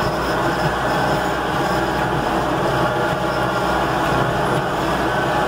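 Vehicle running and rattling steadily as it drives over rough, rutted field ground torn up by rooting hogs.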